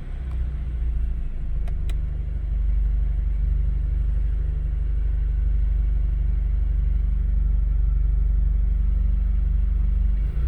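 Stage 2 tuned BMW 428i's N26 2.0-litre turbo four-cylinder running steadily at low revs, its exhaust giving a deep, even drone with no pops or crackles.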